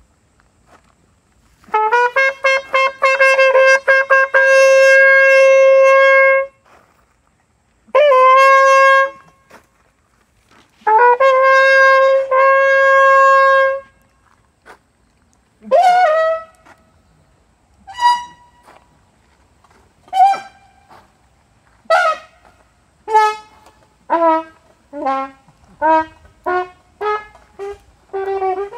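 Solo trumpet playing unaccompanied: three long held notes, the first lasting about five seconds, then a string of short separate notes that come closer together and drop lower near the end.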